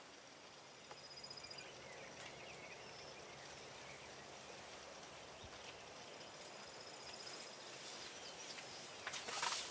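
Faint woodland ambience with distant small birds: two short, high, pulsing trills and a few soft chirps. A rustling noise rises near the end.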